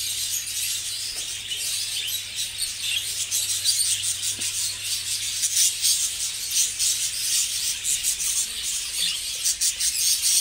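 A breeding colony of budgerigars chattering: many overlapping high chirps and warbles at once, dense and unbroken.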